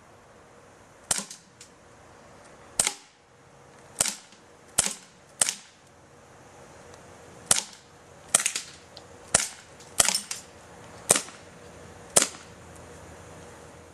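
BB guns firing repeatedly: about a dozen sharp pops at uneven intervals, some in quick pairs, with no steady rhythm.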